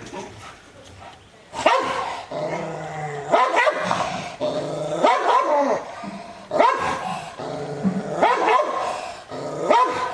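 Rottweiler barking aggressively, about six deep barks roughly a second and a half apart, starting about a second and a half in. A low steady growl runs between the barks.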